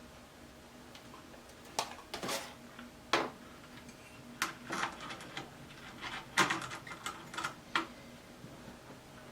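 Irregular clicks and clatters of small hard objects being handled and set down, about a dozen in all, with a cluster of the loudest about six seconds in, over a faint steady hum.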